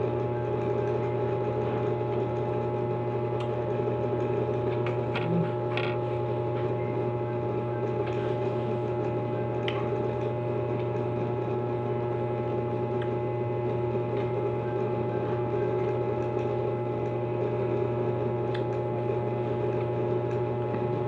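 A steady mechanical hum throughout, with a few short crunchy clicks of someone biting and chewing crisp cucumber slices, around five to six seconds in, near ten seconds and near the end.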